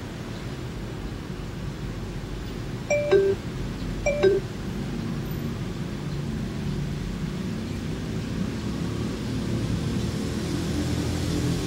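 Finedrive iQ3Dv car navigation unit sounding a short two-note falling chime twice, about a second apart, over steady low car cabin noise.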